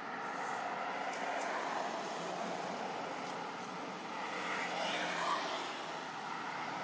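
Distant engine drone, a steady rumble that swells and eases slowly over a few seconds.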